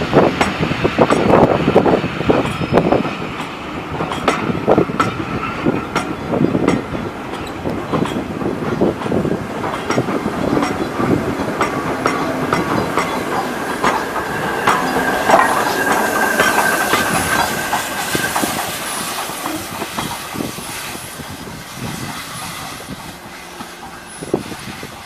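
Passenger coaches and the A1 Pacific steam locomotive 'Tornado' rolling past, their wheels clicking and thumping over rail joints and pointwork. A steady wheel squeal rises about halfway through, and the sound fades as the train draws away.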